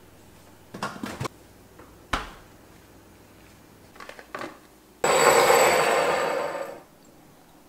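Kitchen handling sounds: a refrigerator door is handled and shut with a thud, and a plastic container is set down with a few clicks. Then comes a loud noisy sound of about two seconds that stops fairly abruptly.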